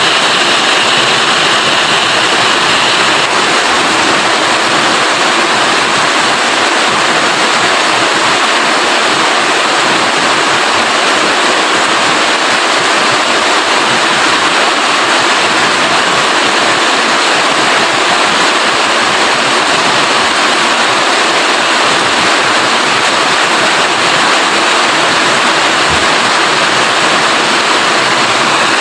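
Steady heavy rain, a dense even hiss of water with no breaks and no single drops or thunder standing out.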